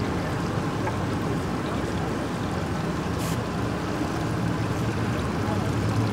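Boat engine running at low speed over the wash of moving water, with a steady low hum. A brief hiss comes about three seconds in.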